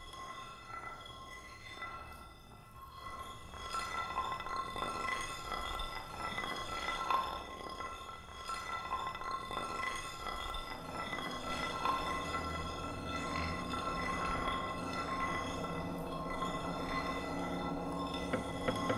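Ambient soundtrack of sustained, glassy ringing tones with a shimmering, clinking texture. It grows louder about four seconds in, and a lower hum fills in underneath from about two-thirds of the way through.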